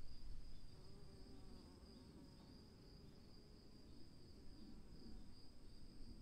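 Quiet storm ambience: insects chirring in a steady high-pitched drone over a low rumble, which eases off about a second in.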